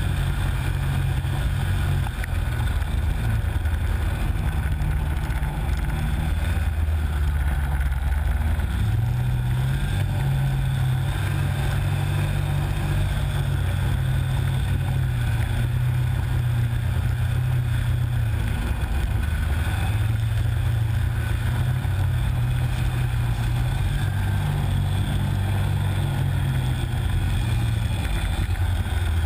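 Snowmobile engine running steadily under way, heard from on board the machine. It is a deep, loud drone whose pitch steps up about a third of the way in and shifts a few more times as the throttle changes.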